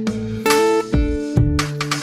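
Background music with acoustic guitar strumming chords.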